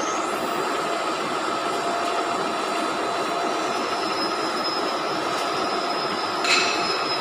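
Steady drone of workshop machinery with a faint high whine, and near the end a single ringing clang of steel struck, from work on the lathe's spindle housing.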